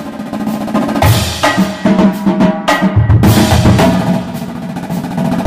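Background music with a prominent drum-kit beat.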